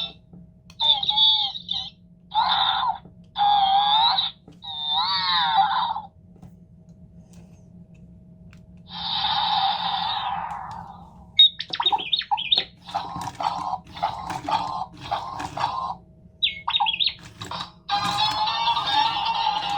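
A remote-control toy robot playing electronic sound effects through its small speaker: about five short, high-pitched warbling chirps with bending pitch, then after a pause a hissy whoosh that dies away, a run of quick choppy beeps and blips, and near the end its music starts.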